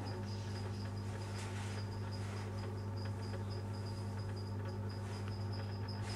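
A steady low hum with a high, thin chirp repeated rapidly and evenly over it.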